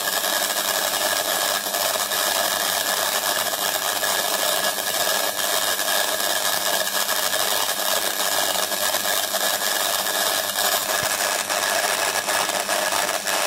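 High-voltage argon plasma discharge in a homemade magnetic ion drive, driven by a microwave oven transformer at 4400 volts through a 10 kV DC rectifier: a steady buzzing crackle full of fine rapid clicks, the 'ratchet' sound of the capacitive discharge spinning between the copper tubes.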